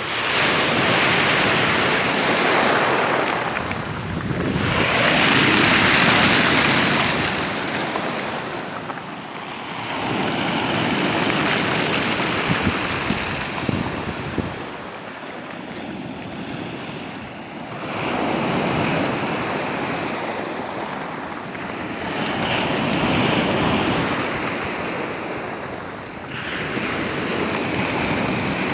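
Sea waves washing in on the shore, swelling and falling away every four to six seconds, with wind buffeting the microphone.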